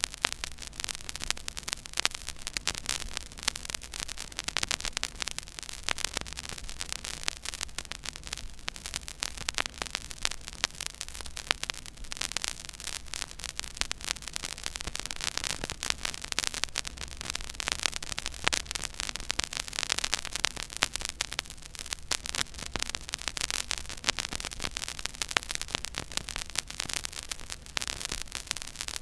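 Stylus tracking the silent groove of a 12-inch vinyl record at 33⅓ rpm: steady surface hiss thick with crackle and frequent pops, over a faint low hum.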